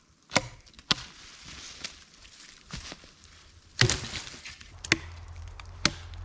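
A series of sharp wooden knocks and cracks, about six at an uneven pace, the loudest about four seconds in: wood being struck or broken.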